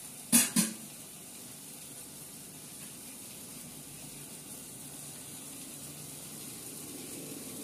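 Two quick clinks of steel kitchen utensils about half a second in, then a steady low hiss from the pot cooking over the lit gas burner.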